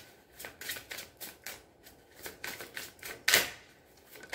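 Tarot deck being shuffled by hand: rapid runs of light card clicks and flicks, several a second, pausing briefly near the middle, with one louder snap of the cards about three seconds in.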